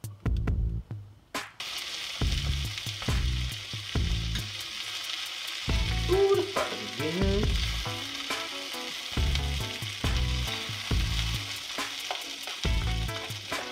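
Chopped peppers and onions sizzling steadily in a hot frying pan, starting about a second and a half in, while grain is scraped off a plate into the pan with a spoon.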